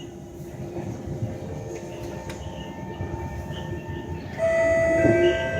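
SMRT C151 metro train running, heard from inside the car: a steady rumble, joined about four seconds in by a louder, steady high whine of several held tones.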